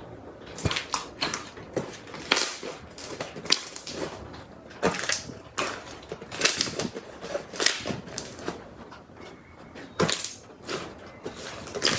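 Slime being played with by hand, making irregular sticky pops and crackles.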